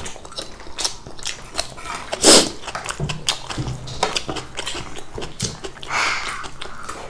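Close-up eating sounds at a meal: chewing and mouth noises with small clicks of a spoon on a plate, and one louder sudden noise about two seconds in.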